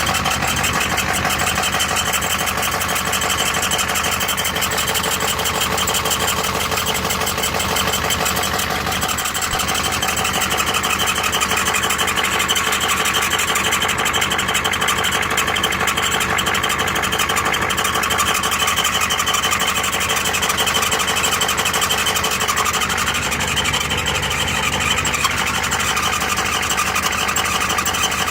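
Ford IDI diesel running, with a steady high-pitched squeal from the ZF5 five-speed transmission. The squeal comes from the rear countershaft bearing race spinning loose in the transmission case.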